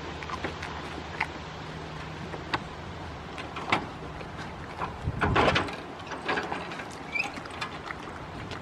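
Goats chewing and crunching food close up: scattered crisp bites and clicks, with a denser burst of crunching about five seconds in. A steady low drone runs underneath.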